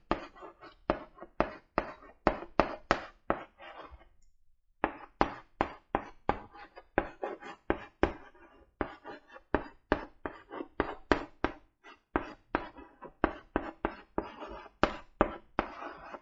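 Chalk writing on a blackboard: a quick run of sharp taps and short strokes, several a second, with a brief pause about four seconds in.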